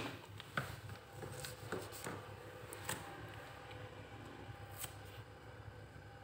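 Faint scattered clicks and rustles of small Japanese butterfly-handled scissors being handled and set down, with light metal-on-metal taps.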